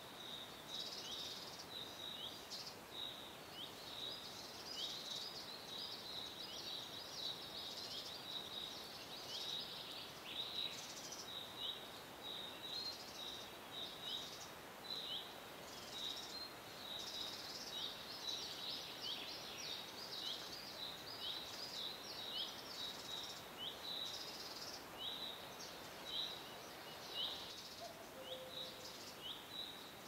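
Birds chirping in a forest ambience: a steady run of short, high chirps that drop in pitch, about two a second, with quicker twittering mixed in, over a faint steady hiss.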